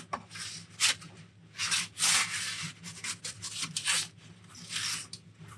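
Metal pizza peel scraping and sliding across the floor of a wood-fired oven in a series of short rasping strokes, five or six in a few seconds, as the tarte flambée is shifted and turned on the peel.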